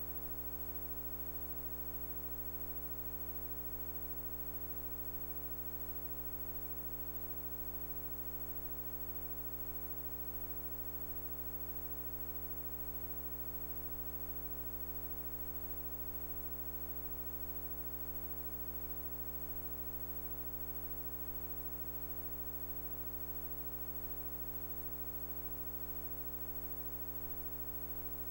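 Steady electrical mains hum: a low buzz with a stack of overtones that holds unchanged throughout.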